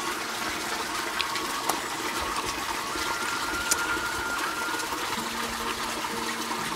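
Steady rush of running water, with a few faint clicks over it.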